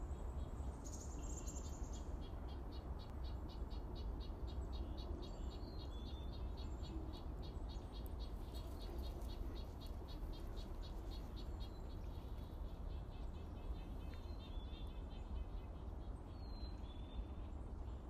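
Outdoor ambience: a steady low rumble under a rapid, even high chirping of about five pulses a second that stops about fourteen seconds in, with a few short high chirps here and there.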